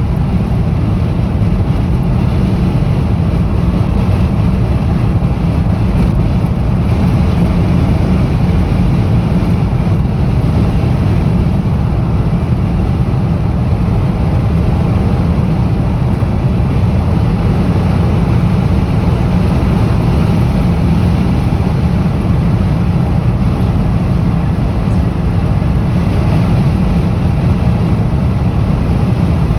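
Strong wind buffeting the microphone: a loud, steady, deep rumble that does not let up.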